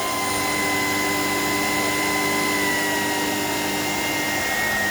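Shark PowerDetect IP1251 vacuum cleaner running steadily. Its motor whine dips slightly in pitch about three seconds in.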